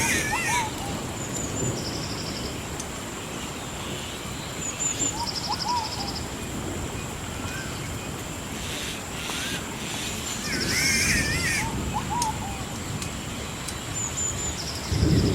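Several birds calling in a recurring set of chirps, trills and warbling notes over a steady rushing noise of running water, with occasional sharp fire crackles. A low thunder rumble swells in at the very end.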